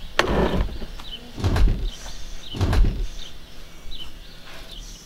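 Three dull thumps with rustling, about a second and a half apart, as sofa cushions and pillows are moved and a person sits down on a padded sofa. A small bird chirps repeatedly in the background.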